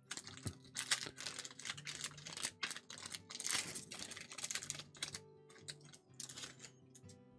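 Pokémon trading cards being flipped through and handled: a run of quick, irregular papery clicks and rustles over faint background music.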